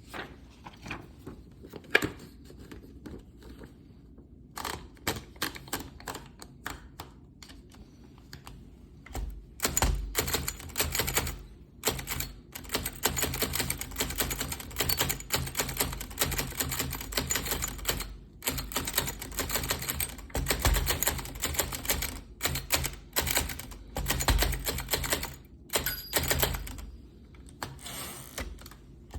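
1932 Underwood Noiseless typewriter being typed on, its keystrokes landing as muffled clacks. The first few seconds hold scattered, slow keystrokes; from about ten seconds in comes steady, fast typing, broken by a few short pauses.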